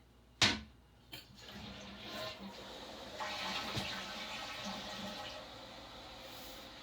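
Toilet being flushed: a sharp click of the handle, then rushing water that swells for a few seconds and then eases off as the tank starts to refill.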